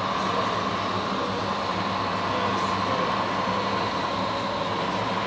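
Radio-controlled scale tipper truck driving loaded: a steady mechanical drone from its drive, with a constant whine over a low hum.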